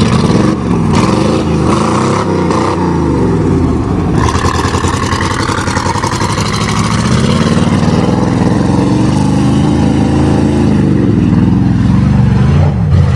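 1988 Chevrolet pickup's 305 small-block V8 revving hard. Its pitch swings up and down in the first few seconds, then stays high for most of the rest.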